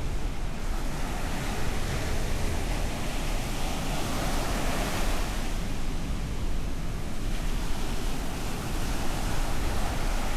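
Ocean surf: waves breaking and washing on a beach as a continuous rush that swells about halfway through and eases a couple of seconds later, with some wind on the microphone.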